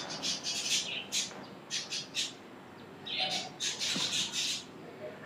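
Birds chirping and squawking in short high-pitched calls that come in clusters, with pauses in between.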